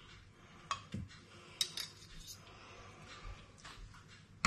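A few light, scattered clinks and scrapes of a utensil against a dish as cooked spare ribs are lifted out onto a plate.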